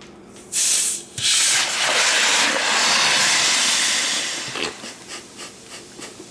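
Capped glass bottle of infected, over-carbonated homebrew milk stout being opened: a short loud hiss of escaping gas, then a longer hissing rush of foam gushing out of the neck for about three seconds that fades away. This is a gusher, which the brewer blames on a wild-yeast infection.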